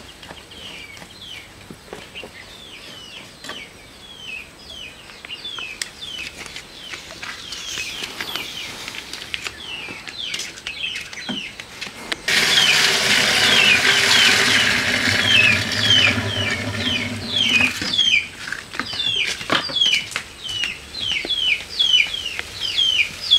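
Milk poured from a plastic bucket into a steel milk can: a loud rushing pour that starts suddenly about halfway through and lasts about six seconds, then breaks into shorter splashes. Throughout, a bird calls over and over in short falling chirps, a couple each second.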